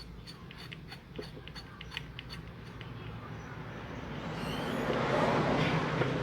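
Small metal carburetor parts clicking lightly and rapidly as they are handled. From about three seconds in, a rushing noise swells steadily louder.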